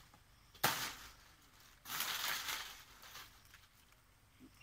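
Two bursts of dry palmyra palm fronds rustling and crackling in the crown, each starting sharply, the first short and the second, about two seconds in, lasting about a second.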